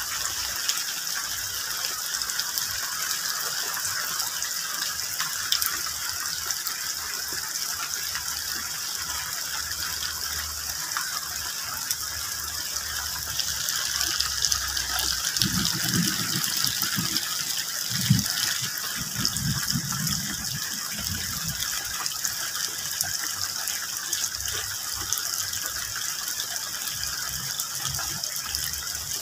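Steady rain falling on tree and banana leaves, a dense even patter of drops. About halfway through, a low rumble comes in for several seconds, then fades.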